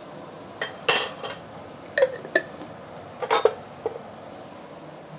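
A metal spoon clinking and tapping against a dish: a series of sharp clinks over about three seconds, some ringing briefly.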